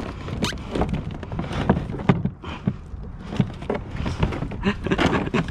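Irregular knocks, clunks and rattles of a Hobie kayak's mesh seat and its frame being pushed and shifted by hand on the hull.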